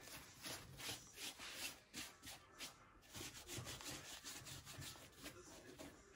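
A sponge scrubbing cleaning foam over a painted leather sneaker: faint, quick back-and-forth rubbing strokes, about three a second.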